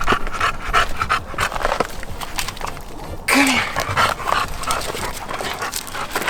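English bulldog panting hard and fast, out of breath from climbing a steep rocky trail. A brief louder scuff cuts in a little past halfway.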